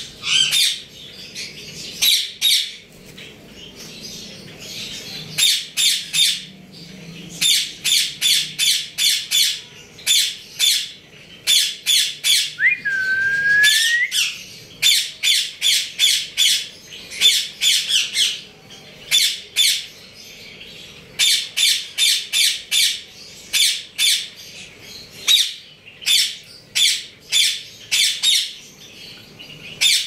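African grey parrot giving short, harsh squawks in quick runs of several at a time, with one drawn-out whistle about halfway through that rises at the end.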